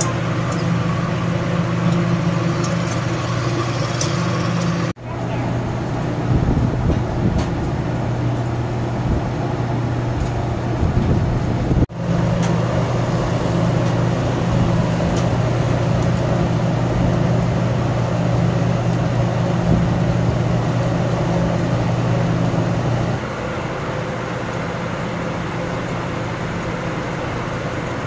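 Roadside street-stall ambience: a steady low hum with traffic noise, and a few light metallic clicks of tongs turning sausages on the grill. The hum fades out for a few seconds early on and drops in level near the end.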